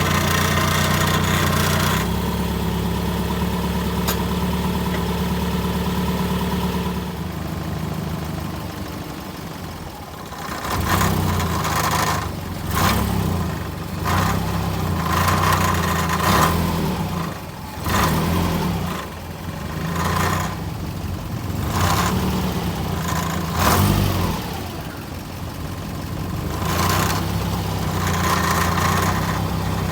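Subaru Legacy engine idling, then revved in a series of short throttle blips a second or two apart before settling back to idle. The rattling it is checked for comes from a loose muffler heat shield, not the clutch.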